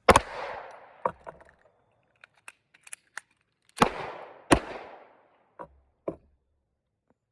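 Three 9mm pistol shots in a shot-timer reload drill: one right at the start, then smaller metallic clicks of the magazine change, then two more shots about 0.7 s apart near four seconds in, each trailing off. A few more handling clicks follow.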